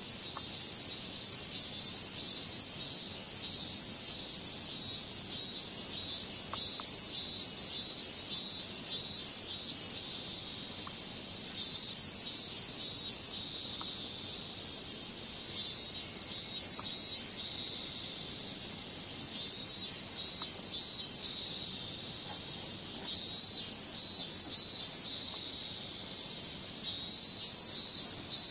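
Chorus of cicadas: a steady high-pitched shrill, with short runs of pulsing calls coming back every few seconds.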